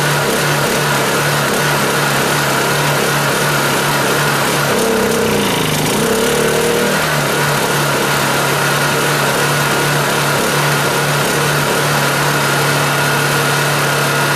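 Honda EU2000i inverter generator's small single-cylinder four-stroke engine running steadily on propane fed through an adjustable regulator, with a thin high whine over it. About five seconds in, its note wavers and dips for a couple of seconds as the propane flow is adjusted, then settles back to a steady run.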